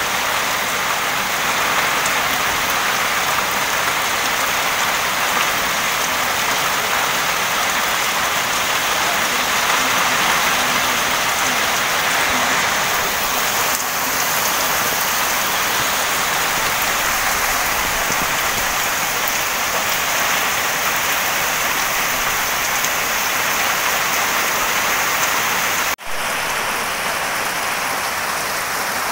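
Steady heavy rain falling on wet grass and muddy ground, splashing into puddles; the sound cuts out for an instant near the end.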